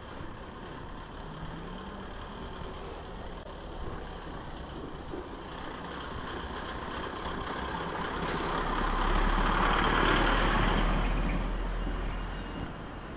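A motor vehicle drives past: its engine rumble and tyre noise build over several seconds, are loudest about ten seconds in, then fade away, over a steady background of street noise.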